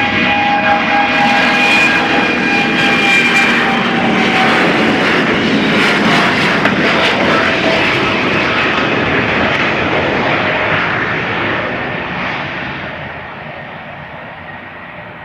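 ANA Boeing 787-8's Rolls-Royce Trent 1000 turbofans at takeoff thrust as the airliner rolls past down the runway: a loud jet roar with whining fan tones that slide lower in pitch as it goes by. The sound fades over the last few seconds as the plane accelerates away.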